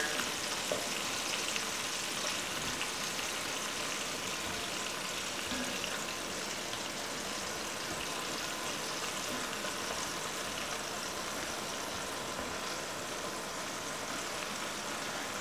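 Steady, even sizzling hiss from food in a hot enamelled cast-iron Dutch oven.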